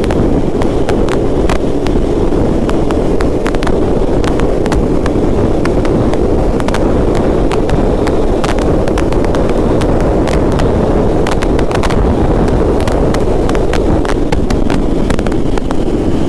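Wind rushing over the microphone of a moving motorcycle, a KTM Duke 250, with engine and road noise underneath. The rush is loud and steady, with frequent small crackles.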